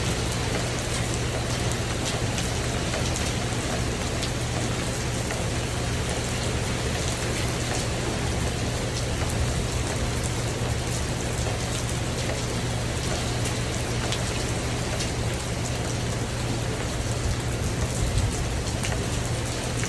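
Steady heavy rain falling on a tin roof, a dense patter of drops hitting the metal.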